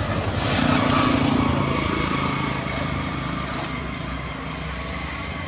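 A small engine running, loudest about a second in and then slowly fading.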